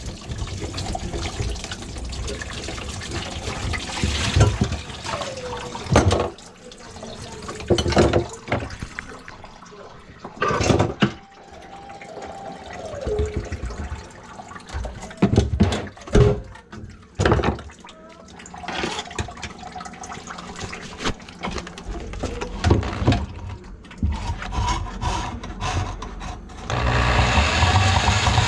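Irregular knocks and clatter of drain pipe fittings being handled, with water splashing and trickling into a bucket. Near the end, a handheld electric drum auger starts up and runs steadily.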